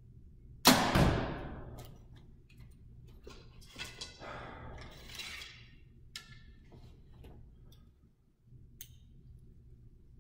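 A 2014 PSE Dominator compound bow shot: the string releases with a sharp loud snap about a second in, and the bow rings and fades over about a second. Softer rustles and a click of the archer handling the bow follow.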